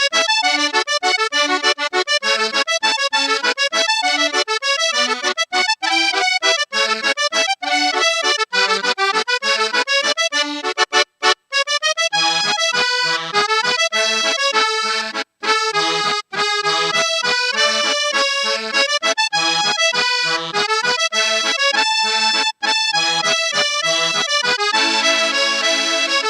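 Background music: a quick, bouncy tune of short, detached notes, with a brief break about eleven seconds in and another about fifteen seconds in.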